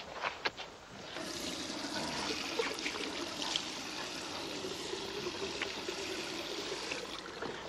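Water running steadily in a washroom, starting about a second in and stopping just before the end, with a few sharp footstep clicks at the start.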